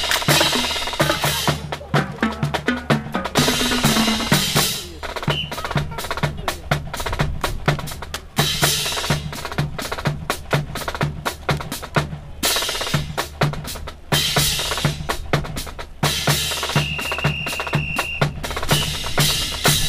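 Military drum cadence: rapid snare strokes, rolls and rim clicks over a steady bass drum beat. A brief high steady tone sounds near the end.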